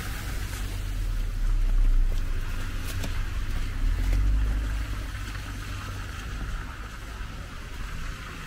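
Street traffic on a city street in winter: a low rumble of vehicles going past, swelling about two seconds in and again around four seconds, over a steady hiss of tyres.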